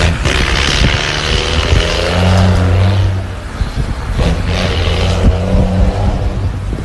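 Mercedes-Benz 1620 truck's diesel engine running loudly, its low drone swelling and easing as the revs change, strongest about two seconds in and again near five seconds.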